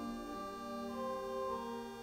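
Church organ playing slow, sustained chords, with single notes moving within the held harmony.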